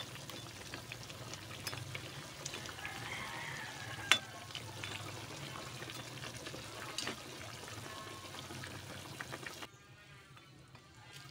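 Pot of cabbage and pork soup bubbling at a simmer while a metal ladle stirs it, with small clinks and one sharp clink of the ladle against the pot about four seconds in. Near the end the cooking sound cuts off to faint music.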